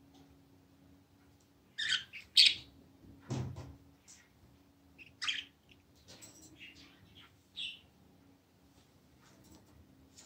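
Budgerigars giving short chirping calls in bursts: a loud cluster about two seconds in, another about five seconds in, and softer ones after. A dull low bump comes about three and a half seconds in.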